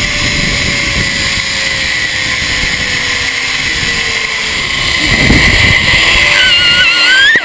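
Zip line trolley running along the steel cable: a steady whirring rush of pulley and air, with a faint whine that slowly falls in pitch. Near the end a brief high, wavering tone rises sharply.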